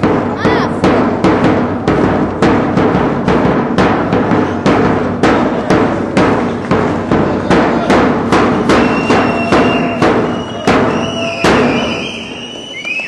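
A steady thumping beat, about two thumps a second, over a busy gym din, with sneakers squeaking on the court in the last few seconds.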